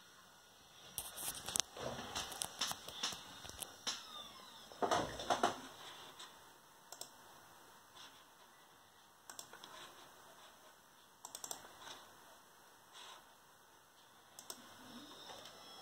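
Clicking of computer keys, tapped irregularly: a quick flurry over the first several seconds, then single taps or short clusters every second or two, as short jog commands are sent to the telescope's stepper-motor controller.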